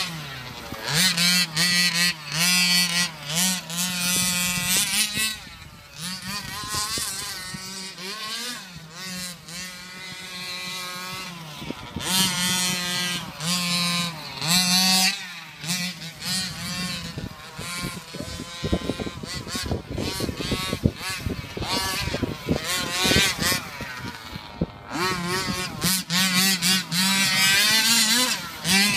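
1/5-scale Redcat XSC RC truck's small two-stroke gas engine, revving up and down again and again as the truck is driven around a dirt track, dropping back toward idle between bursts.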